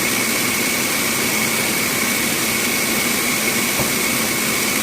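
Bandsaw running steadily, a constant machine noise with a steady high whine.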